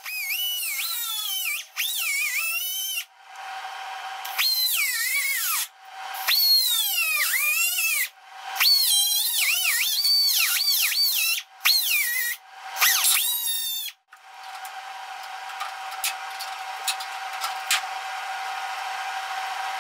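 Angle grinder with a cut-off wheel cutting sheet steel in a series of short bursts. Its whine sags in pitch as the wheel bites and rises again as it frees up. After about 14 seconds the grinding stops, leaving a faint steady hum and a few light metallic clicks as the cut piece is pried loose.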